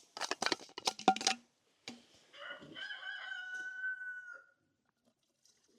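Rooster crowing, its long final note held for about two seconds, starting a little over two seconds in. Before it, a quick run of rapid clicks or taps lasts about a second and a half.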